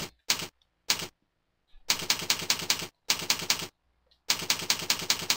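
Computer keyboard being typed on: quick runs of keystrokes in several bursts, with short pauses between them.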